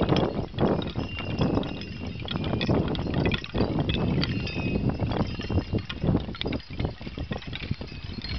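Small bells hung among wooden wish plaques jingling, with the wooden plaques clacking against each other in many quick knocks, over a low rumble.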